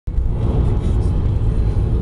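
Steady low rumble of road and engine noise from a car driving at highway speed, heard from inside the moving car.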